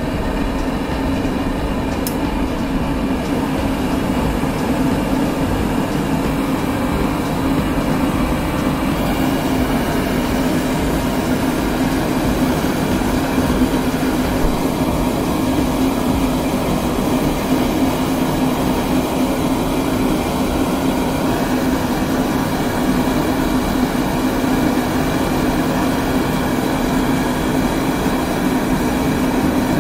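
Homemade propane forge burner running steadily at full flame: a constant rush of gas and fire with a low hum underneath.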